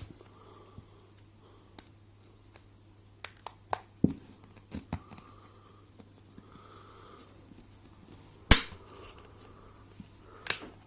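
Plastic back cover of a Leagoo M5 smartphone being pried off by hand to reach the removable battery: scattered small clicks of the cover's clips, with a sharp snap about eight and a half seconds in.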